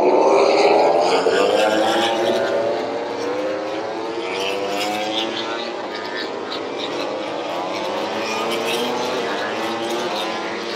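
Several MotoGP racing motorcycles' four-cylinder engines at full race speed, more than one bike heard at once with their pitch wavering up and down. The sound is loudest at the start and eases off over the next few seconds as the bikes run on down the track.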